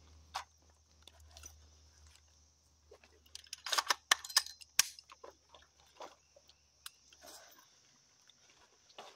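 Clicks and rattles of firearm handling, a rifle and pistol being reset between dry-fire reload drills, busiest around four seconds in.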